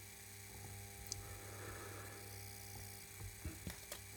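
Faint, steady electronic hum made of several fixed tones: interference in the recording phone's audio, blamed on a third-party replacement screen. A few faint clicks near the end as a circuit board and soldering iron are handled.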